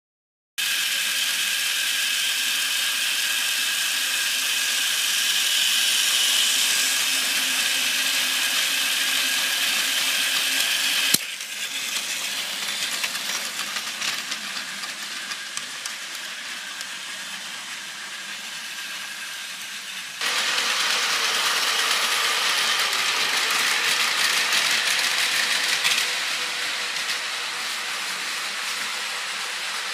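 Battery-powered Plarail toy train (400 series Tsubasa model) running on plastic track: a steady motor-and-gear whine with wheels rattling. It starts about half a second in and changes level abruptly twice, near the middle and again past two-thirds of the way through.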